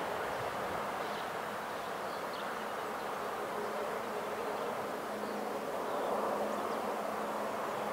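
Steady outdoor background noise with a faint, unchanging low hum.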